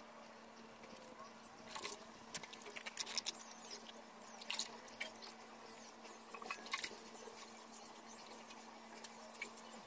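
Faint, irregular wet scratching and small clicks as a toothbrush scrubs and fingers peel loosened white paint off a wet shoe sole over a basin of water, with a faint steady hum underneath.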